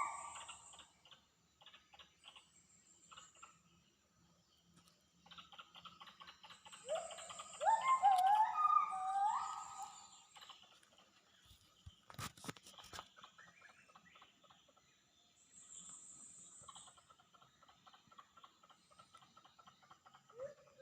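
Wild forest animal calls: bouts of loud, overlapping whooping notes that climb in pitch, one bout at the start and a longer one a third of the way in, with a faint high insect buzz that comes and goes between them.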